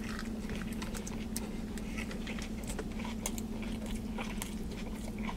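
Close-miked mouth sounds of a man biting into and chewing a soft Italian sub: irregular wet clicks and smacks, over a steady low hum.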